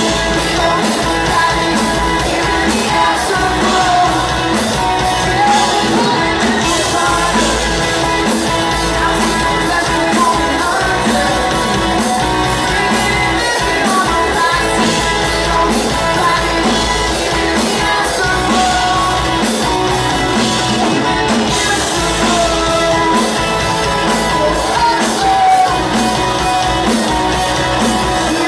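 Rock band playing live: a male lead singer over electric guitars and a drum kit keeping a steady beat.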